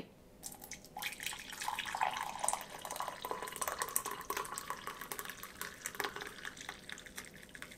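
Hot brewed coffee pouring in a steady stream from a stainless thermal carafe into a ceramic mug. It starts about a second in and tails off near the end.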